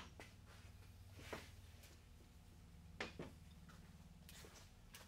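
Near silence: workshop room tone with a steady low hum, broken by a few faint knocks, the clearest pair about three seconds in.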